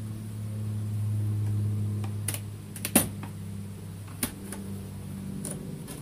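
Wooden hive frames clicking and knocking as they are pried and lifted from a Langstroth hive box, the sharpest knock about three seconds in. Underneath is a low steady hum of honeybees.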